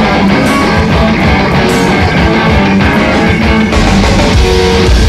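Live rock band playing loud: electric guitar, bass and drum kit through a festival stage PA.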